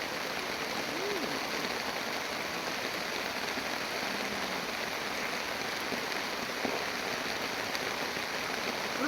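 Steady, even hiss of water, like rain or a running stream, with no break. A faint short tone rises and falls about a second in.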